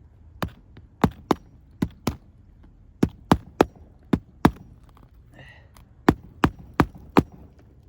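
Hammer driving roofing nails to fasten an asphalt shingle back onto the roof: sharp strikes in quick groups of two or three, about fourteen in all.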